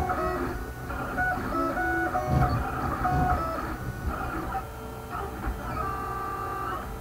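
Stepper motors of a wooden-framed 3D printer whining as the print head moves while printing, the pitch jumping from tone to tone as the head changes speed and direction, with longer held tones near the end.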